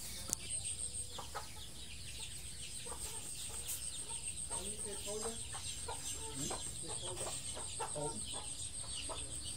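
Chickens clucking off and on in a string of short calls, over a steady high-pitched whine.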